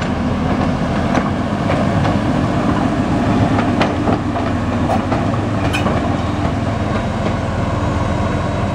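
ÖBB class 2067 diesel-hydraulic shunting locomotive's engine running steadily as it rolls past, with a few sharp clicks of its wheels over the rail joints.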